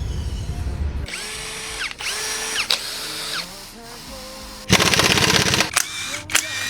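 Handheld power tool run in several short bursts that spin up and hold, then a loud rattling run of about a second near the end, as engine bolts are undone during a teardown.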